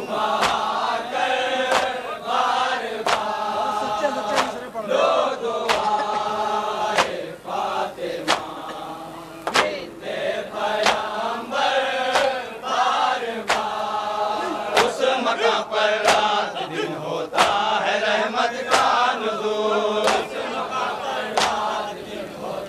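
Men's voices chanting a nauha, an Urdu Muharram mourning elegy, in chorus, phrase by phrase. Sharp slaps keep time a little faster than once a second, the chest-beating of matam that accompanies the recitation.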